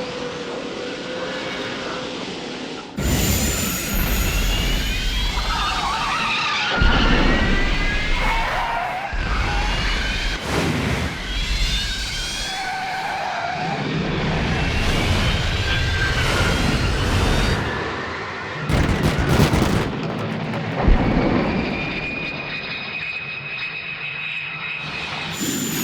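A string of science-fiction film sound effects: engine-like rushing roars and whooshes layered with electronic whines that slide up and down in pitch, switching abruptly every few seconds, with a couple of short loud bursts near the end.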